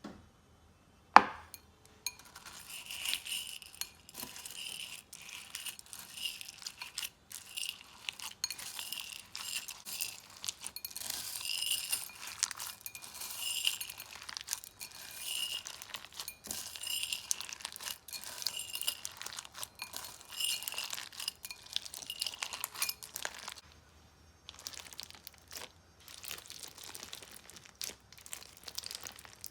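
Crunchy slime with mixed-in add-ins being squeezed and worked by hand, giving dense crackling and clicking crunches in repeated squeezes. A single sharp click about a second in is the loudest sound.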